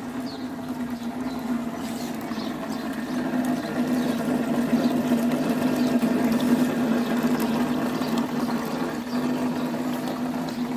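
Small home water fountain running: water trickling and splashing over the steady hum of its electric pump.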